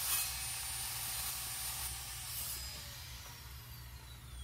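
Evolution metal-cutting miter saw's blade freewheeling after a cut through steel rod, with a hiss and a high whine. The whine holds, then falls steadily in pitch and fades over the last couple of seconds as the blade spins down.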